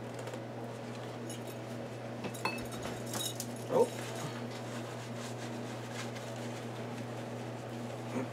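A few faint clinks and taps over a steady low hum, with one short falling squeak a little before four seconds in.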